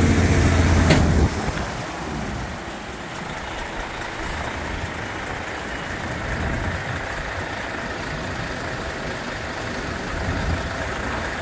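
Mercedes-Benz Actros 4031 dump truck's diesel engine running with the tipper body raised. A steady hum drops away about a second in, just after a sharp click, leaving a quieter, rougher running sound.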